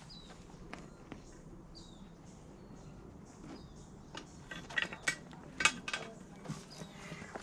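Scattered clicks and knocks, loudest in a cluster about five seconds in, with a short high chirp repeating every second or two.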